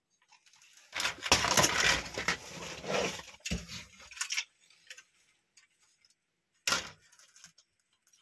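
Scrap electronic circuit boards clattering and rattling against each other as one is set down on a pile of boards, loudest for about three seconds from a second in. Scattered small clicks follow, with one more brief clatter near the end as another board is picked up.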